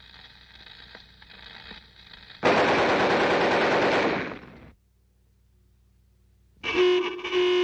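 A cartoon sound effect: a machine-gun burst lasting about two seconds comes out in place of a guitar strum. A few seconds later comes a loud pitched honk in two parts, like a horn.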